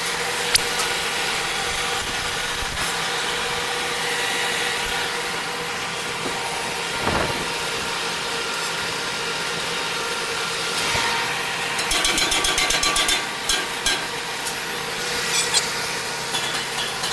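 Impeller spot-welding production line machinery running with a steady hum, broken by two bursts of rapid clicking, one about twelve seconds in and one near the end.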